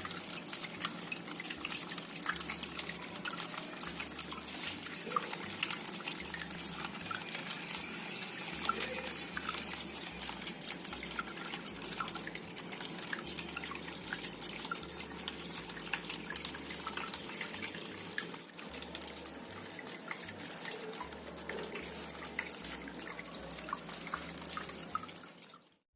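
Water from a homemade indoor waterfall fountain falling and dripping steadily, with many small drops splashing into its basin; it fades out just before the end.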